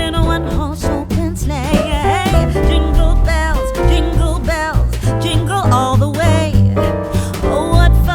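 Background music: a song with a wavering, singing-like lead voice over a steady, stepping bass line.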